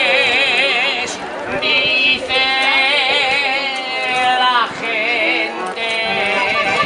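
A man singing long held notes with a strong vibrato, accompanied by a piano accordion, with some chatter from people around.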